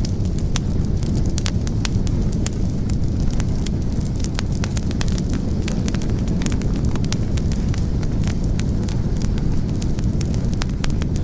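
Wood fire burning in a fireplace: frequent, irregular crackles and pops over a steady low rumble of the flames.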